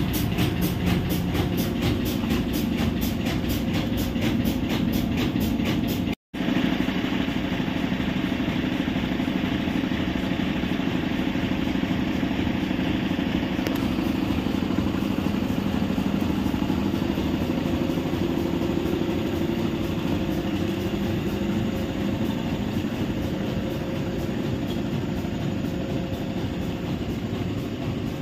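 Hitachi EX5500-5 mining excavator's diesel engines running steadily with a deep drone. A fast, even pulsing sits over it until a brief cut about six seconds in.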